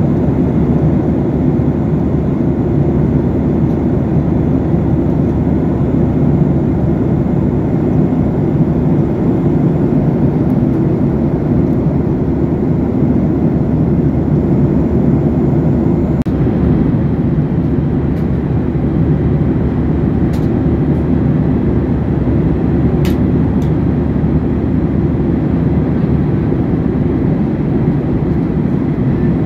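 Steady jet airliner cabin noise in flight: the low drone of engines and airflow heard from a window seat, with a few faint clicks in the second half.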